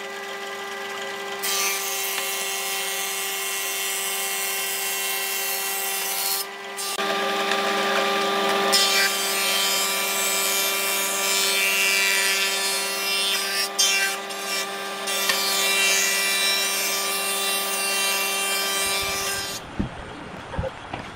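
Combination jointer and thickness planer running with boards fed through: a steady motor hum under a dense cutting hiss that drops out briefly a few times between boards. Near the end the machine sound cuts off and a few light wooden knocks follow.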